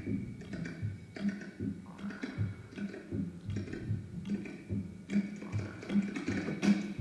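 Quiet rhythmic percussion music: soft low knocks recurring two to three times a second, with light taps and clicks over them.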